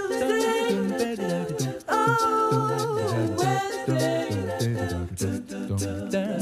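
Background music: an a cappella song, voices singing held notes over a sung bass line with a steady beat.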